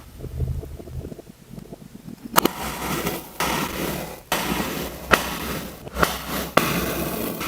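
Kinetic sand being handled, with soft crumbling and rubbing at first. From about two and a half seconds in there is a louder, coarse scraping hiss that stops and starts, with a few sharp clicks.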